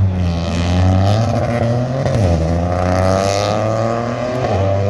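Rally car engine running hard on a special stage, its pitch climbing and falling as the driver accelerates, lifts and shifts, with a sharp drop about two seconds in and another near the end.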